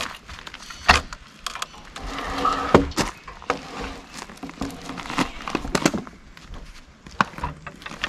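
A log being levered over with a cant hook on a portable sawmill's steel bed: irregular knocks, scrapes and a few sharper clunks as the hook bites and the log shifts.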